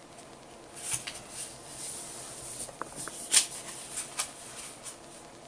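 A sheet of paper being folded and creased by hand: soft rustling with a few short, sharp crinkles, the loudest a little past the middle.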